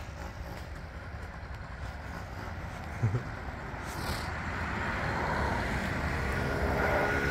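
Yamaha QT50 moped's 49cc two-stroke single-cylinder engine running as it is ridden at a distance, growing louder as it comes back toward the listener, with its engine tone standing out near the end. A brief thump about three seconds in.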